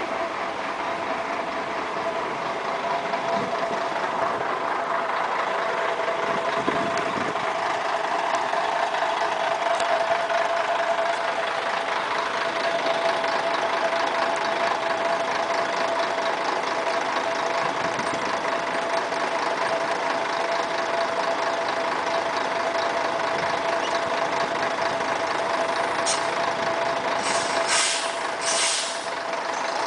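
Volvo B10M articulated bus's 340 hp diesel engine running at low revs while the bus is manoeuvred slowly, with a steady mid-pitched whine over the engine noise. A few short hisses of air come near the end.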